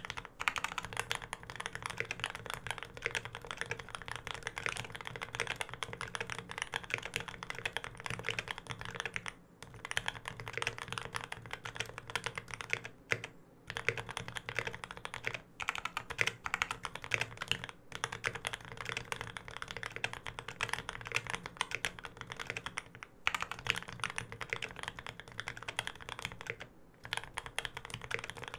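Fast continuous typing on a custom mechanical keyboard with Krytox-lubed Gateron Ink Black linear switches, an aluminium plate and GMK keycaps: a dense run of keystroke clacks with a few brief pauses.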